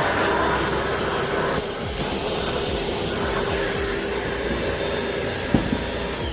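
Ryobi cordless 1-gallon wet/dry vac running steadily with a constant motor whine, a short knock about five and a half seconds in. At the very end it is switched off and its motor starts to wind down.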